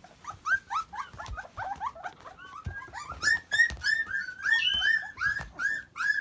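A litter of Akita puppies crying from hunger: many short, high-pitched whimpers and squeals overlapping in quick succession, growing louder and more frequent about halfway through. A few soft thumps sound beneath them.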